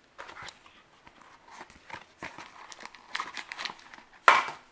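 Plastic packaging crinkling and rustling in short, irregular bursts as accessories are handled and lifted out of a box, with one louder rustle near the end.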